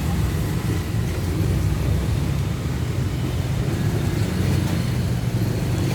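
Car engine running at idle, a steady low rumble.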